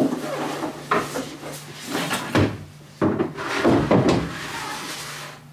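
A white shelving unit being bumped and scraped as it is pushed into a closet: sharp knocks at the start and about a second in, then a cluster of bumps and scrapes around three to four seconds in.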